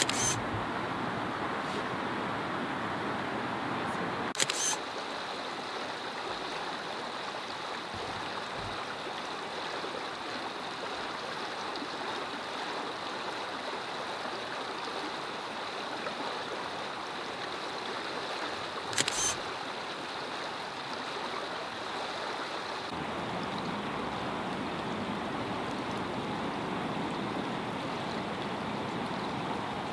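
Steady rush of shallow water flowing over a rocky streambed. Brief sharp clicks come at the start, about four seconds in and near twenty seconds in.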